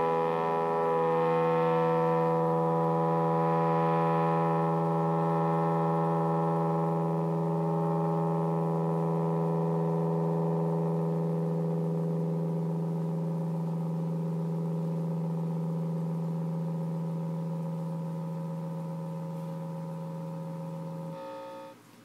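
Electric guitar ringing out through a germanium Fuzz Face-style fuzz pedal, a sustained distorted tone slowly dying away, its upper overtones fading over the first few seconds. The overtones shift as the string decays, which the uploader takes for the pedal's Q2 transistor bias voltage returning to its resting point. Near the end the tone cuts off suddenly, leaving hiss.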